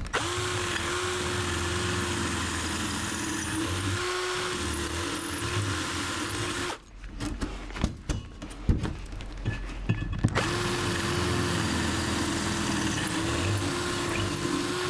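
Electric drill with a 4 mm bit running under load, widening pre-drilled holes at an angle. It runs steadily for about six and a half seconds, stops for about three and a half seconds with a few clicks, then runs again.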